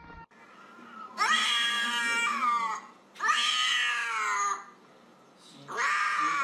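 Orange tabby cat meowing: three long meows, each falling in pitch, the last running on past the end.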